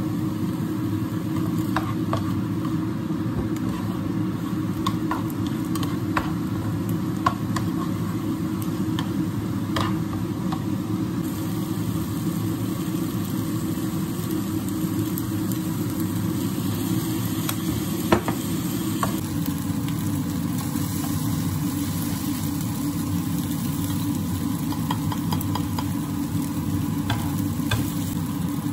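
Food frying in a pan while being stirred, with scattered clicks of a utensil against the pan over a steady low rumbling noise.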